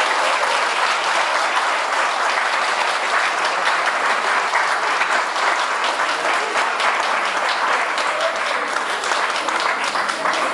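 Audience applauding, many hands clapping steadily as a dance performance ends.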